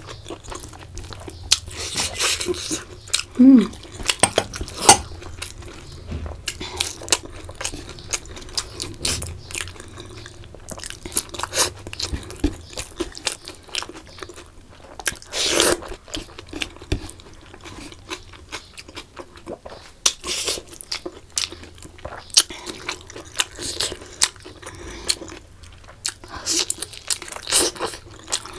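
Close-miked eating sounds: a person chewing rice and curry eaten by hand, with many irregular wet mouth clicks and smacks.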